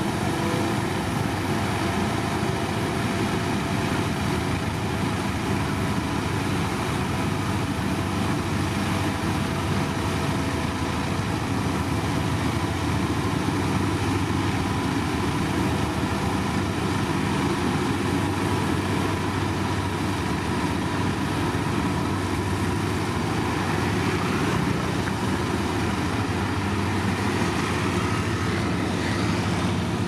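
Engine of heavy road-construction machinery running steadily, a constant even drone with no change in speed.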